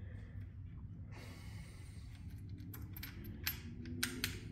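Faint clicks and clinks of small metal parts being handled by fingers at a motorcycle battery's terminals, a few sharp ticks in the second half, over a low steady hum.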